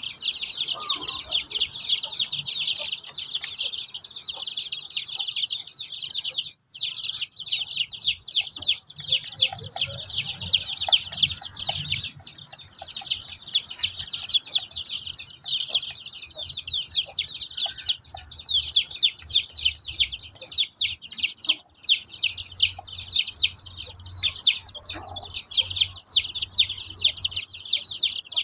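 A flock of young chicks peeping continuously: many short, high, falling peeps overlapping one another, breaking off for a moment once.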